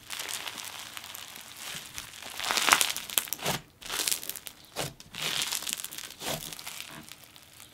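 Snow fizz slime filled with bingsu beads being squeezed, folded and pressed by hand. It gives a crunchy, sizzly crackling that comes in repeated bursts, loudest a little under three seconds in.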